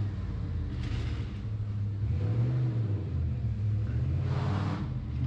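Low, steady engine rumble whose pitch rises and falls briefly about halfway through, with a short hiss near the end.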